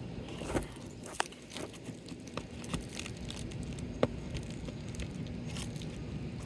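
Sealed asphalt roof shingles being worked loose: crunching and scraping with a series of sharp cracks as the sealant strip tears free, the loudest crack about four seconds in.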